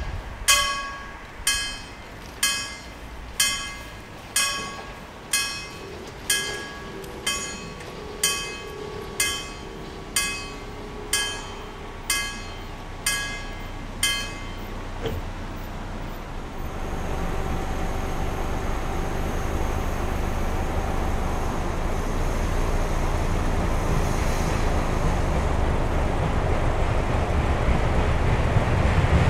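Level-crossing warning bell striking about once a second, some fifteen ringing strikes, then stopping about halfway through once the barriers are down. After that a low rumble grows steadily as the steam locomotive approaches.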